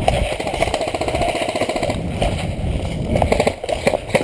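Airsoft electric guns firing rapid full-auto bursts, a fast mechanical rattle that runs for about three seconds and breaks into a few sharp cracks near the end.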